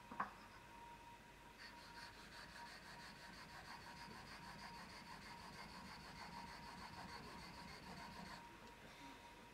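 Kanna (Japanese plane) blade being honed on a wet 8000-grit Kitayama waterstone to put on a micro bevel: a faint rubbing of steel on stone in short strokes, starting about a second and a half in and stopping near the end. A small click right at the start.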